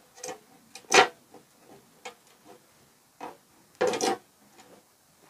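Hand pull rivet gun being worked to set a rivet: a string of sharp clicks and clacks from the handle and jaws. The loudest comes about a second in, with another cluster near four seconds.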